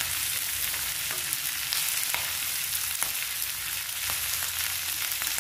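Chopped onion and green capsicum sizzling in hot oil in a kadhai while being stir-fried with a spatula: a steady frying hiss with a few light clicks and scrapes of the spatula against the pan.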